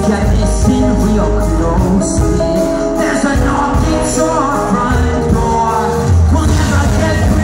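Live rock band playing loudly, with a male lead vocal over electric guitar, keyboards and drums; the voice bends up and down over a steady, heavy low end.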